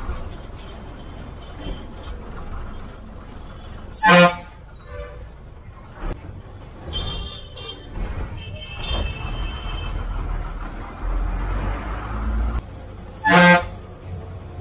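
Bus horn sounding two short blasts about nine seconds apart, over the steady low rumble of the bus engine, heard from the driver's cabin.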